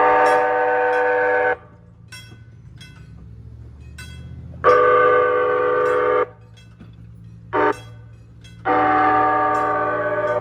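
Nippon Sharyo P865 light rail car's horn sounding three long, steady blasts of about a second and a half each, with a short toot between the second and the third. Sharp ticks repeat at a regular beat between the blasts.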